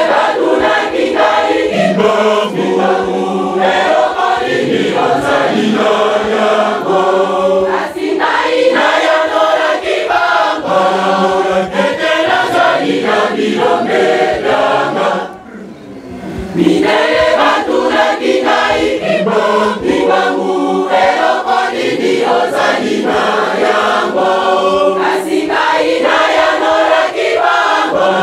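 Kimbanguist church choir singing together, with a short break about halfway through before the voices come back in.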